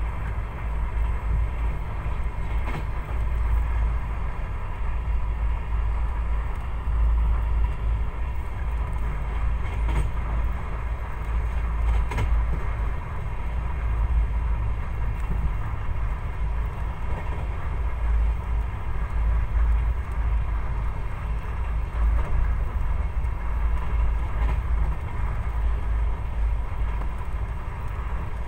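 Steady low rumble of a moving passenger train heard from inside the coach, with a faint steady whine and a few light clicks.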